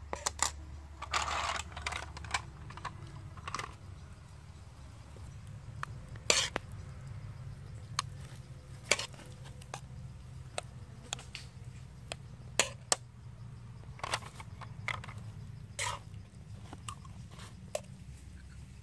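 Metal spoon scraping and clinking in an aluminium wok and against snail shells as a cooked filling is scooped into them: irregular sharp clicks, a few louder than the rest, with a short scrape about a second in.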